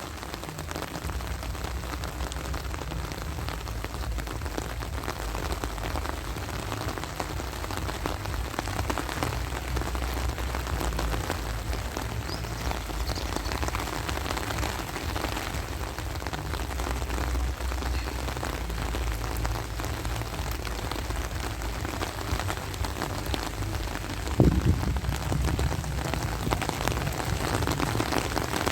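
Steady rain falling, a dense patter of drops, over a continuous low rumble. About three-quarters of the way through there is one brief, louder low thump.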